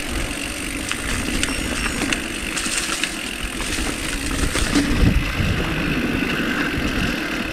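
Steady rumble and rattle of a mountain bike moving down a steep, rough trail, with scattered clicks and knocks.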